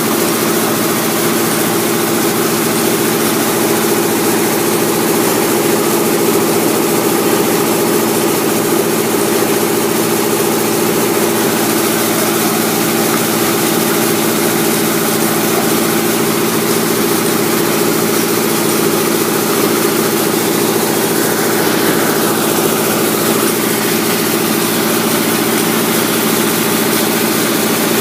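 Engine of a concrete mixer with a lifter running steadily at an even speed, with a constant hum and no change in pitch.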